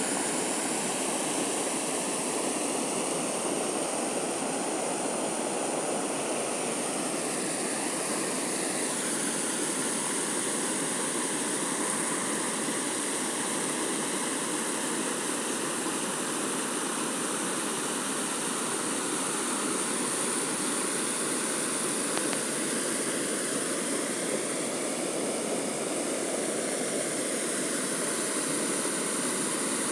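Muddy floodwater spilling over the spillway of a small concrete dam and crashing onto rocks below, a steady rushing: the reservoir is full and overflowing after rain.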